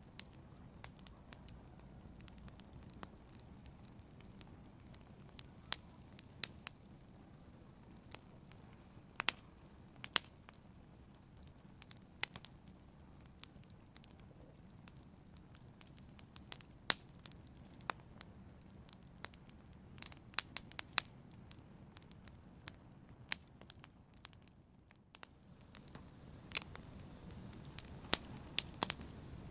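Fire burning in a fireplace: irregular sharp crackles and pops over a low, steady rush of flames.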